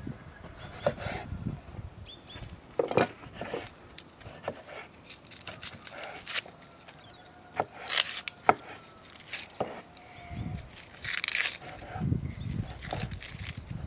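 A kitchen knife cutting tomatoes on a wooden cutting board: irregular knocks of the blade against the board, a few sharper than the rest, with soft rubbing and handling sounds between them.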